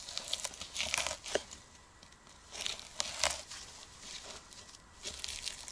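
Knife cutting through a frozen pike, the blade crunching and crackling through the icy flesh and bone in three spells of short strokes.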